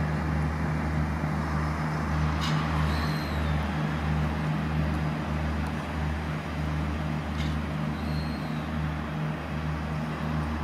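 SNCF X 72500 diesel railcar's engines running, a steady low hum that throbs about twice a second. Two brief sharp high sounds come about five seconds apart.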